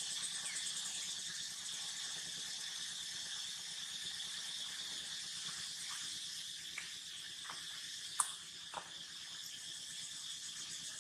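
Steady, shrill chorus of insects running throughout. In the second half a few brief clicks sound, the sharpest and loudest about eight seconds in.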